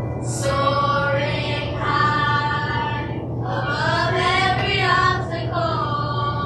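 Elementary school children's chorus singing the school song in unison over an instrumental backing, the voices coming in just after the start.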